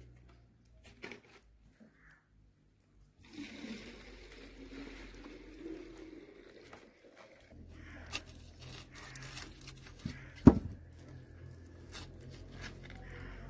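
Whole cauliflower being handled and trimmed on a table: its leaves rustle for several seconds, small clicks and snaps follow as a knife works at the leaf stalks, and there is one loud, sharp knock about ten seconds in.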